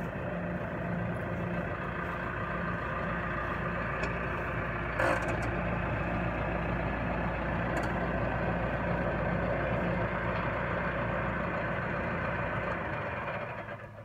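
McHale V660 round baler running off the tractor's PTO, together with the tractor engine: a steady, even machine hum that the narrator calls quiet as a church mouse, with one short knock about five seconds in. Near the end the baler noise drops off sharply, leaving only the tractor's lower idle.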